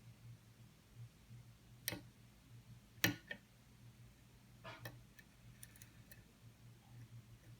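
Faint metallic clicks and scrapes of a lock pick and tension wrench working the pins of a Dexter challenge lock cylinder, with a few sharper clicks, the loudest about three seconds in.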